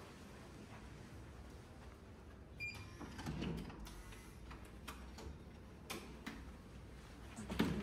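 Scattered clicks and knocks over a low steady hum, with a brief high tone about two and a half seconds in and the loudest knock near the end.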